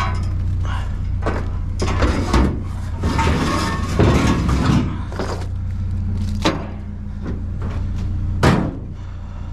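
A small truck's engine running steadily, overlaid by a series of knocks and clattering, with a sharp bang about eight and a half seconds in.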